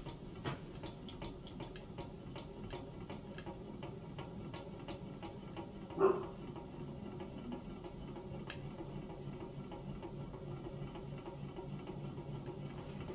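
Lake Breeze hot-air fan running on the heat of its burner, its small hot-air engine giving a steady low pulsing hum with light ticks as the brass blades spin. There is one brief louder knock about six seconds in.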